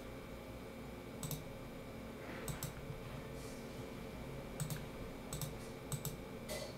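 Faint clicks of a computer mouse, about ten at uneven intervals, over a low steady background hum.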